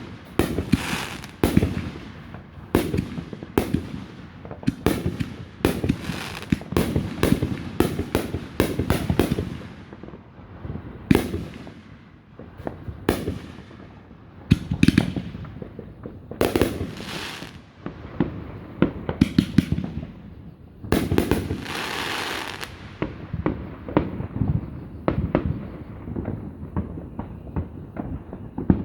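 Fireworks display: a rapid string of shell bursts and firecracker-like bangs, dense for the first ten seconds, then sparser booms. About two-thirds of the way in comes a longer rushing burst.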